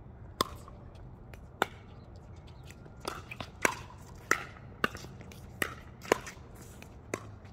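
Pickleball rally: sharp pocks of a plastic pickleball struck by paddles, two spaced hits and then quicker exchanges from about three seconds in.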